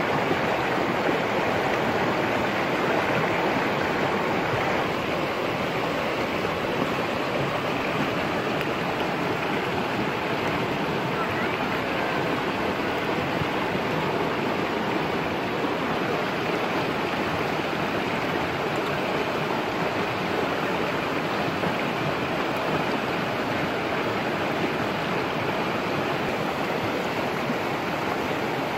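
Fast-flowing shallow stream rushing over rocks: a steady, unbroken rush of water.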